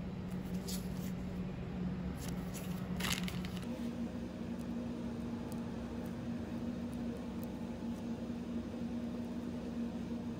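Soft crinkling and squishing of a plastic piping bag being squeezed as chocolate-hazelnut filling is piped, a few crinkles in the first three seconds, over a steady low room hum.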